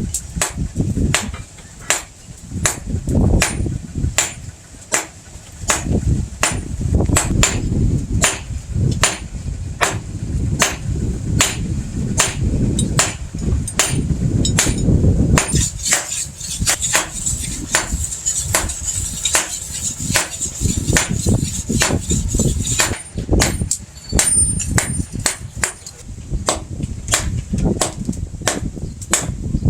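Hammer blows on hot spring steel against an anvil, as the steel is forged into a blade. The blows are sharp and come in a steady rhythm of a little under two a second.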